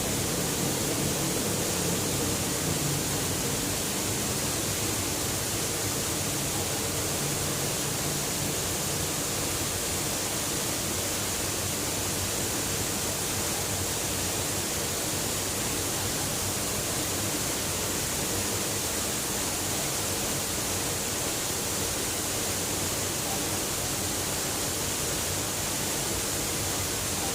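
Mountain waterfall's steady rush of falling water, an even hiss that holds unchanged throughout.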